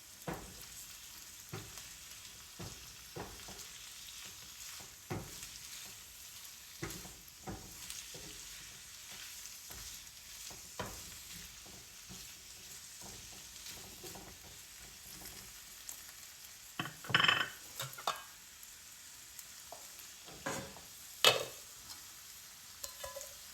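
Drained beans frying in oil in a pan: a steady sizzle, with a utensil stirring and tapping against the pan every second or so, and a few louder knocks late on.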